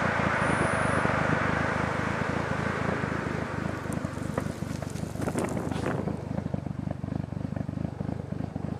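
2002 VW GTI's 1.8-litre turbo four-cylinder running at low revs through a 3-inch turboback exhaust with a high-flow cat: a rapid, low pulsing exhaust note. A hiss over it fades during the first few seconds.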